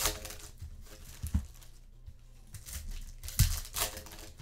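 Trading-card pack wrappers crinkling and tearing as packs are ripped open, in several short bursts, the loudest a little over three seconds in.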